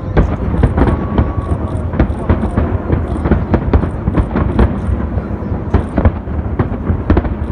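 Fireworks display: rapid, irregular bangs and crackles, several a second, over a continuous low rumble of echoing explosions.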